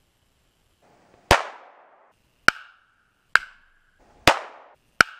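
Gunshots fired at eggs, five in quick succession and unevenly spaced. Some shots trail off in a long echo, others have a short ringing tone.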